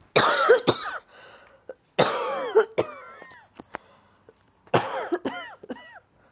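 A person coughing in three fits about two seconds apart, each a few harsh coughs in quick succession with a voiced tail: a lingering cough from bronchitis that is clearing up.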